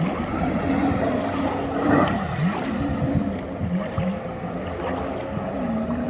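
Jet ski engine running at speed, its pitch dropping and climbing back several times as the throttle is eased off and opened again.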